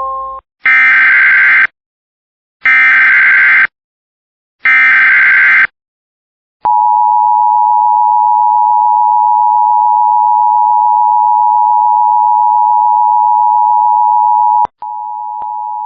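Emergency Alert System activation: three one-second bursts of SAME digital header data, about a second apart, then the steady two-tone EAS attention signal held for about eight seconds. It cuts off and a quieter tone follows briefly near the end.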